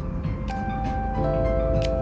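Background music: held notes come in one after another, a new one about half a second in and another just after a second, over a steady low bed.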